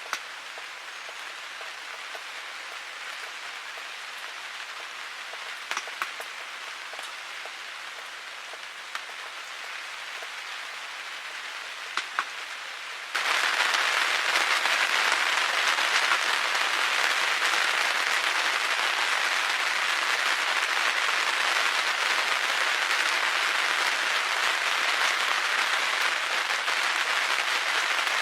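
Steady rain falling, with a few sharp drops ticking in the first half. About halfway through the rain suddenly gets much louder and stays that way.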